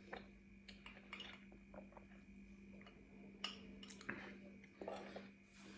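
Very quiet eating sounds: faint chewing with a few scattered soft clicks of cutlery or a plate, over a faint steady hum.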